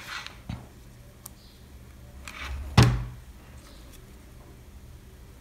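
Hand-handling noises as satin ribbon petals are picked up and worked onto a felt base: a few light clicks and rustles, then a single sharp thump a little before the middle.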